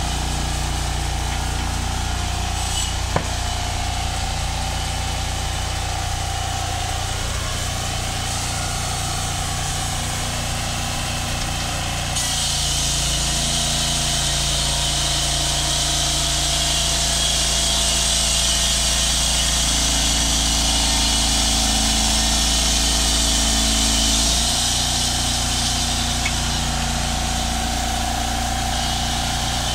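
Portable band sawmill's engine running steadily. From about twelve seconds in, the band blade cutting through the timber beam adds a high rushing noise and the engine note changes under load; this stops about twelve seconds later and the engine runs on alone.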